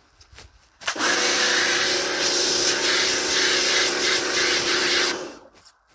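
Pressure washer spraying: a steady hiss of the water jet over the hum of the pump motor, starting abruptly about a second in and cutting off about four seconds later.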